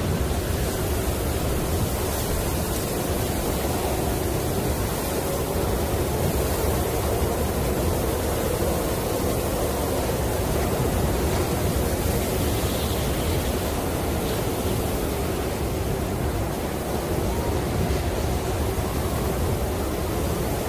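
Snowstorm wind blowing steadily: a continuous rushing noise without breaks or distinct gusts.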